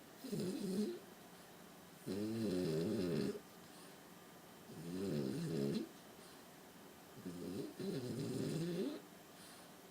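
French bulldog snoring in deep sleep: about four rattling snores, each about a second long, coming every two to three seconds with quiet breaths between.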